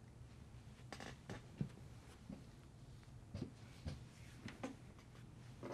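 Quiet room with a few faint, scattered clicks and light knocks, the sounds of a person settling into a desk chair and touching a computer keyboard.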